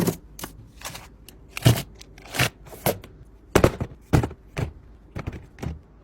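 About a dozen irregular sharp knocks and clatters from objects being handled during unboxing, spaced unevenly and stopping near the end.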